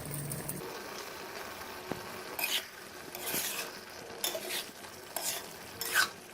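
Chicken frying in oil and butter in a karahi, sizzling steadily, while a spatula stirs it and scrapes against the pan about once a second.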